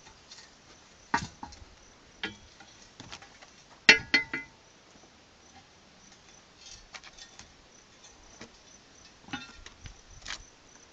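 Steel falling-plate targets being handled and reset: scattered metallic clanks and clinks, some leaving a brief ring, the loudest cluster about four seconds in.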